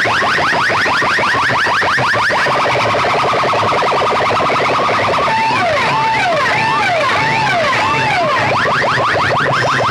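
Electronic siren effects played very loud through a large DJ speaker-box sound system: fast repeated downward chirps, then a rapid warble from about two seconds in, then a rising-and-falling wail in the middle, with the fast chirps returning near the end.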